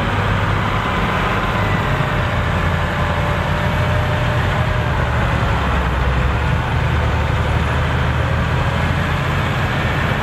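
Massey Ferguson 7626 tractor's diesel engine running steadily at a fairly constant speed.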